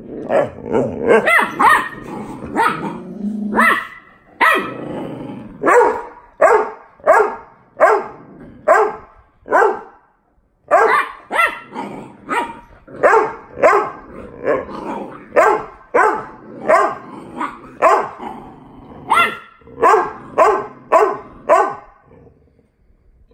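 Adult boxer dog barking over and over at a boxer puppy in play, about one or two barks a second, with a short break about ten seconds in. Some growling mixes in during the first few seconds.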